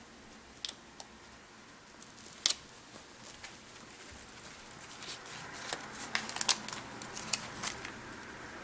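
Small clicks and crinkles of paper sticker sheets being handled, as stickers are peeled off their backing and pressed onto planner pages. The clicks are scattered at first, with one sharper snap a couple of seconds in, and come thicker over the last few seconds.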